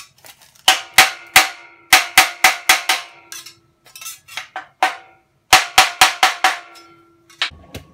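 Hand-held sheet-metal cutter notching thin aluminium sheet: three quick runs of sharp snaps, each bite leaving the sheet ringing briefly with a metallic tone.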